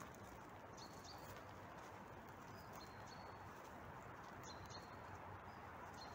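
Quiet outdoor ambience: a steady low hiss with a few short, high chirps and soft clicks scattered through it.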